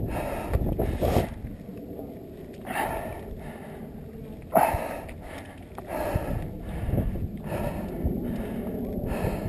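A person breathing hard from the exertion of a steep rock scramble, with loud breaths about once a second, over low wind rumble on the microphone. A sharp knock about halfway through is the loudest moment.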